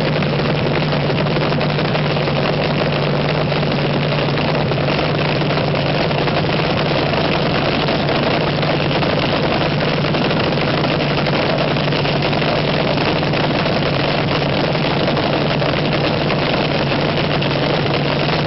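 Supercharged, nitromethane-fuelled engine of a vintage front-engine dragster idling steadily during a warm-up.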